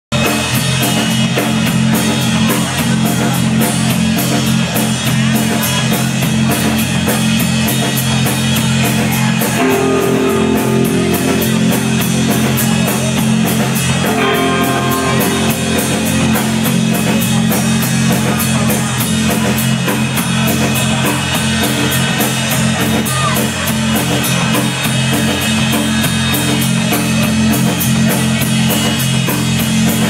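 Live rock band playing loud, with electric guitars and a drum kit keeping a steady beat.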